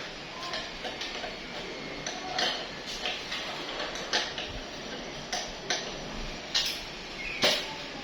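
Irregular small clicks, clinks and knocks of parts and tools being handled while a welding transformer is reassembled, with one louder knock near the end.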